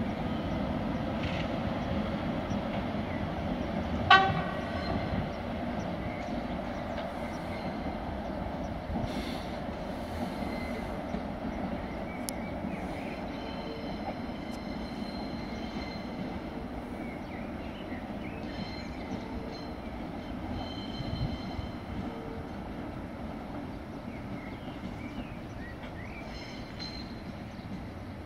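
Rail traffic rumbling steadily through a station, with one short train-horn toot about four seconds in; faint high tones come and go later.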